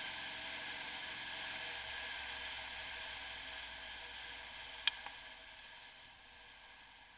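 Faint, muffled wind and running noise of a moving motorcycle, easing off over the last two seconds, with one sharp click about five seconds in.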